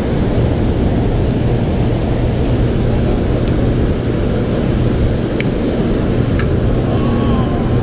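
Steady low roar of water pouring through an open dam spillway, with a few light clicks over it.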